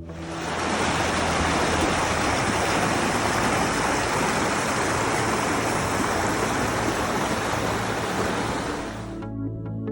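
Steady rushing water, the even hiss of a stream or falls, which cuts in suddenly and stops about nine seconds in.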